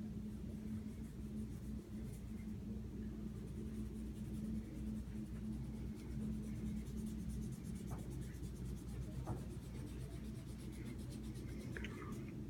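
Scratchy strokes of colouring on a paper worksheet, quickening in the second half, over a steady low hum.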